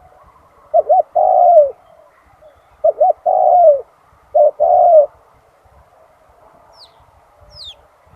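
Spotted dove cooing: three phrases, each two short coos followed by a longer falling coo. Near the end a small bird gives two faint, high, falling chirps.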